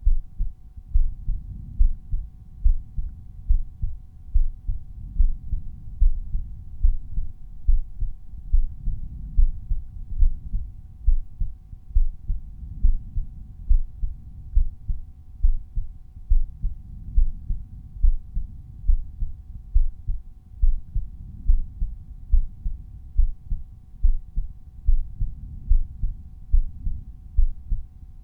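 A resting human heartbeat heard at the aortic auscultation point on the chest: regular, steady heart sounds, with a faint steady hum beneath them.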